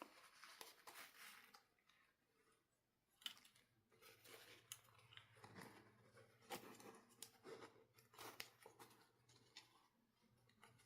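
Faint clicks, snips and short rustles of toy packaging being handled and cut open, a few sharp clicks among them.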